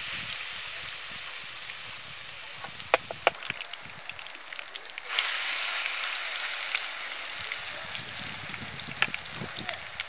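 Oil sizzling in a frying pan as herb-and-potato patties fry. The sizzle jumps suddenly louder about five seconds in as another patty is laid into the hot oil, and there are a few sharp pops around three seconds in.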